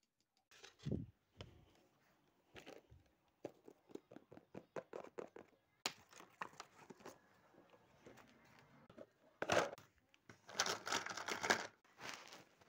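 Handling noise from a round plastic tub: a run of quick taps and clicks, one sharp click, then louder crinkly rustling near the end.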